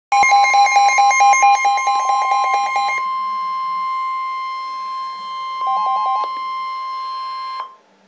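Several NOAA weather radios alerting at once: a steady weather alert tone, overlapped for the first three seconds by a fast beeping alarm at about five beeps a second and by a second short run of beeps about six seconds in. The tones cut off together near the end. They announce a severe thunderstorm warning.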